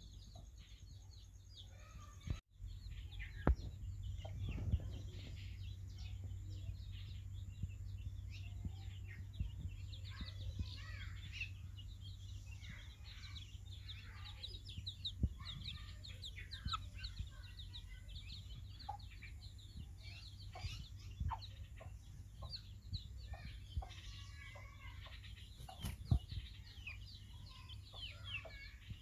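Aseel chicks peeping almost constantly in short high chirps, with occasional clucking from the adult fowl, over a low steady hum.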